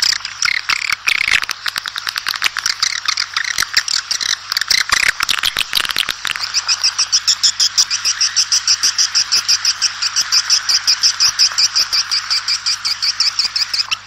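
Swiftlets twittering: a dense tangle of high chirps, settling about six seconds in into a fast, even run of chirps, about six a second. This is the kind of swiftlet call played to lure the birds to a flock.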